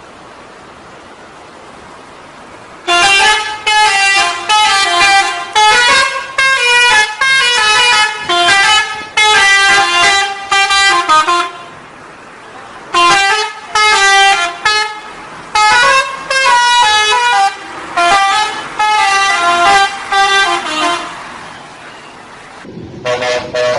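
Bus 'telolet' musical horn playing a jingle of stepped multi-tone notes. It plays in two long runs of about eight seconds each, with a short break between them, over a fainter steady background.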